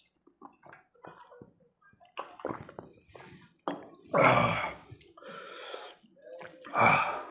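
A man drinks water from a steel tumbler, then makes wet eating and slurping mouth sounds as he eats rice by hand. The sounds are loudest twice, about four seconds in and again near the end.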